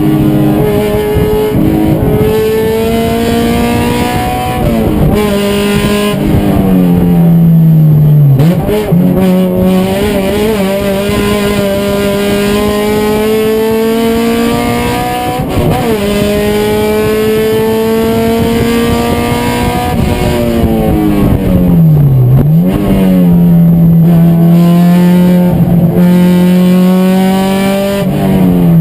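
Race car engine running hard at high revs. Its pitch climbs slowly through long pulls and drops sharply and recovers at gear changes, about 8, 15, 21 and 22 seconds in.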